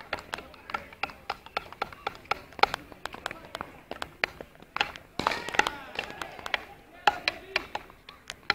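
Hockey sticks clacking against a ball and against each other: sharp, irregular knocks a few times a second, with voices calling out now and then.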